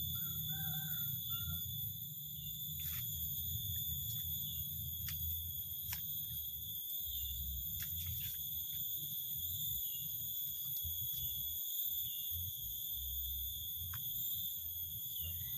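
Outdoor ambience: a steady high-pitched whine with a few faint ticks over a low rumble of wind on the microphone.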